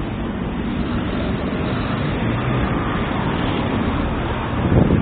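Street traffic noise: a steady, dense rumble of vehicles, with low engine hums that shift in pitch.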